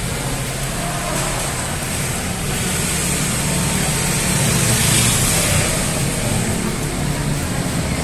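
Steady traffic noise of scooters riding around a covered parking garage, with a low hum underneath. The noise swells through the middle as a scooter passes, then settles back.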